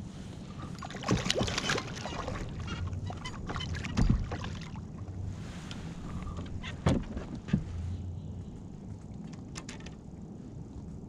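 Splashing and knocking of a small red drum being brought to the side of a fishing kayak and landed, with a loud thump against the hull about four seconds in and two more sharp knocks a few seconds later.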